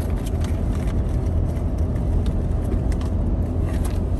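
Steady low rumble of car road noise heard from inside the cabin while driving, with scattered small clicks and ticks.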